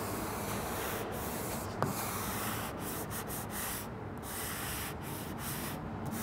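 Fine-grit sanding pad rubbed back and forth by hand over the painted steel body of a Yoder YS640 pellet grill: a steady scratchy rasp with brief breaks as each stroke turns. The paint is being lightly scuffed so touch-up paint can grab. A single sharp tick comes a little under two seconds in.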